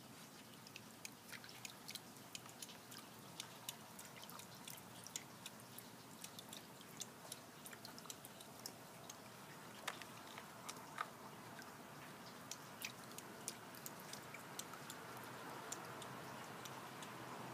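Faint, irregular small clicks and clinks, several a second, from a raccoon handling ice cubes in a small water bath.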